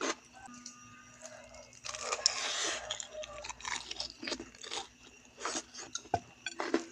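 Chewing and crunching of crispy smashed fried chicken (ayam geprek), with sharp crunches throughout and a denser run of crunching about two seconds in.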